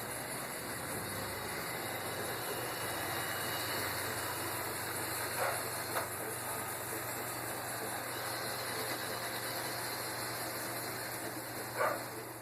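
Robot vacuum running, a steady whirring hum of its motor and brushes. Two brief louder sounds stand out, one about five seconds in and one near the end, with a sharp click just after the first.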